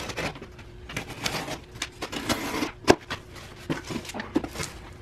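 A cardboard box being opened by hand: packing tape cut and the flaps pulled open, with irregular scraping and rustling and a sharp click about three seconds in.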